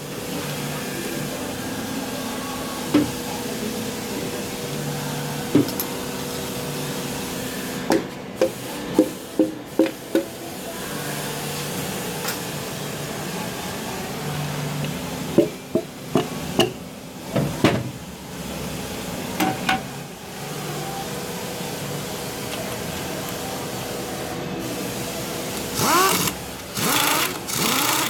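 Sharp metal clicks and knocks from hand work on a Hemi V8 engine's bottom end (crankshaft, connecting rods and rod caps), over a steady mechanical hum. A few louder short hissing bursts come near the end.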